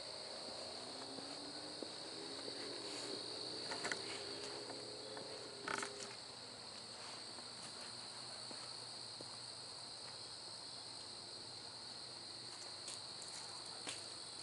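Steady high trill of a chorus of night insects, such as crickets, running on without a break. A few brief scuffs, likely footsteps on the trail, come about four and six seconds in.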